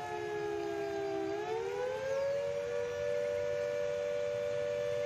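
A siren wailing in two close tones that sink slowly, rise about a second in, then hold steady at the higher pitch.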